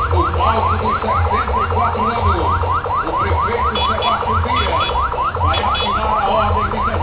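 Emergency vehicle siren on a rapid rising yelp, about four to five quick upward sweeps a second, over a low rumble of vehicles. Two brief higher-pitched beeps break in about four and five and a half seconds in.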